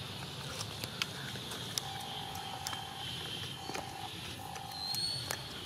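Macaque chewing food close by, with scattered sharp crunching clicks, over outdoor ambience with a steady high hiss. A flat mid-pitched tone sounds three times, the first about a second long, and a short high whistle comes near the end.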